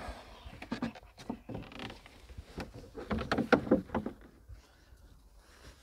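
Plastic bottle and fuel hose being handled: a run of irregular clicks and knocks, thickest and loudest about three to four seconds in, then dying away.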